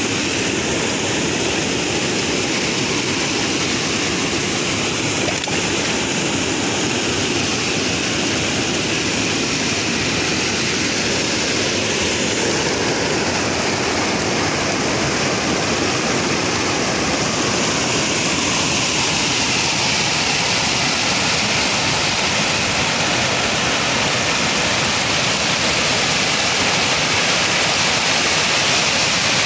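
Fast river water rushing in whitewater: a loud, unbroken rush that grows slightly louder and brighter in the second half.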